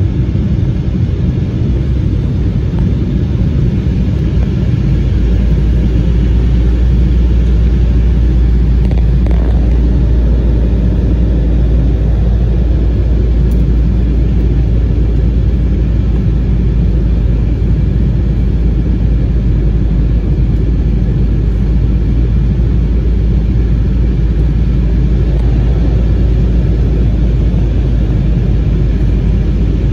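Cabin noise of an Embraer 190 airliner on final approach, heard from a window seat beside the wing and engine: a steady rush of airflow and the drone of its turbofan engines. A deep rumble grows louder about five seconds in.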